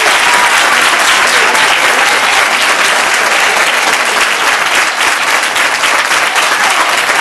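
Loud, steady applause from many people clapping.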